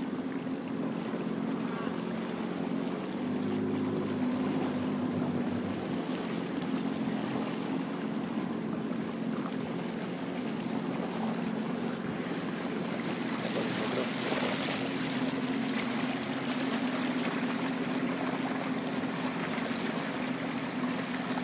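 A boat's motor running steadily at low speed, a constant even drone, with water noise around it.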